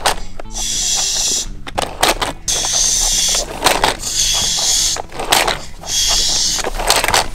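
Toy paint-shop playset spraying water onto a colour-changing die-cast car: four spells of spray hiss, each about a second long, with small plastic clicks between them.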